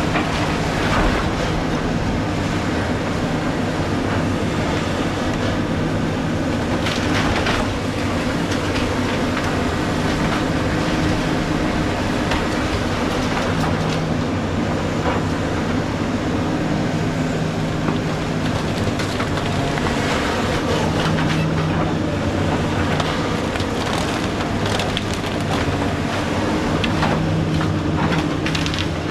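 Excavator's diesel engine running steadily under load, with irregular clanking and crunching as the tracked machine climbs over a pile of trash.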